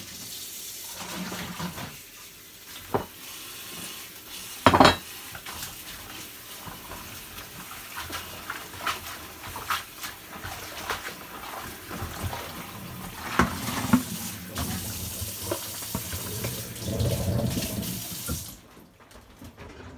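Kitchen tap running steadily into a stainless steel sink while grass is rubbed and rinsed in a plastic basin, with splashing and a few sharp knocks, the loudest about five seconds in. The running water stops near the end as the tap is shut off.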